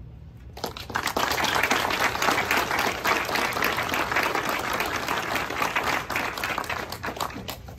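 A small crowd applauding. The clapping starts about half a second in, holds steady and thins out near the end.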